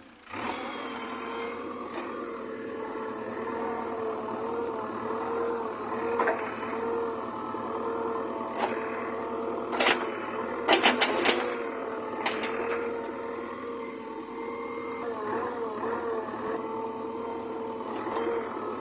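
JCB backhoe loader's diesel engine running steadily, its pitch wavering now and then as it takes load, with a few sharp knocks in the middle, several in quick succession.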